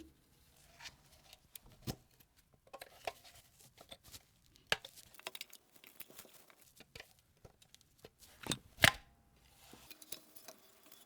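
Light, scattered clicks and taps of small metal camera parts being handled and worked on an Ensign Ful-Vue box camera, with two sharper clicks about eight and a half seconds in.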